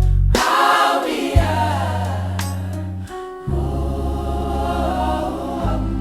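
Gospel choir singing in harmony over held bass notes, with the voices swelling in about half a second in.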